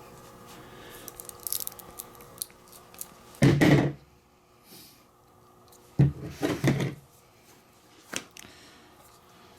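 Light clicks, then two loud bursts of clunking and rattling, about three and a half and six seconds in, and a single sharp click near the end: handling noise from parts and tools being moved during wiring work.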